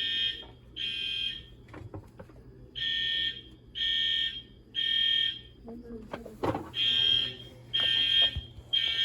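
EST fire alarm horns sounding the temporal-three evacuation code: three short, high-pitched blasts about a second apart, a pause, then three more, repeating. A single thump comes about two-thirds of the way through.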